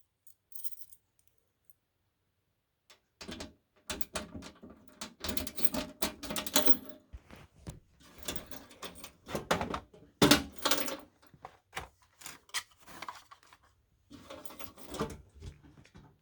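A bunch of keys jangling and clicking against the lock of a Fire-Lite MS-2 fire alarm control panel's cabinet door, starting about three seconds in, as keys are swapped and worked in the lock.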